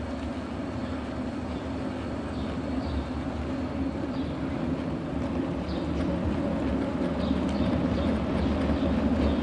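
Bicycle rolling over brick paving: a steady rumble that grows slightly louder toward the end.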